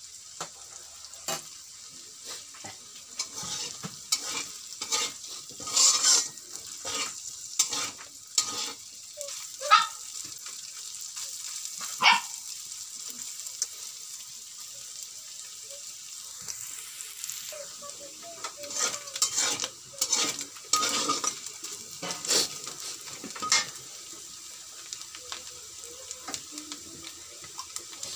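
Chopped chicken sizzling in a metal wok, with a metal spatula scraping and knocking against the pan in short, irregular strokes. The strokes come thickest in the first ten seconds and again around twenty seconds in.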